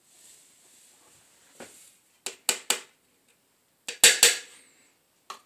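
Kitchen utensils clicking and knocking on kitchenware during bread making: three quick sharp clicks about two seconds in, then two louder knocks about four seconds in.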